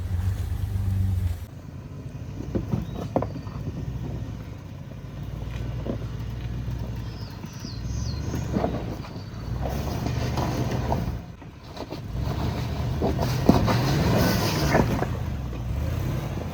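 Off-road SUV engine running at low revs as it crawls over rocks, with scattered knocks and crunches of tires on rock. Late on, the engine revs up and falls back.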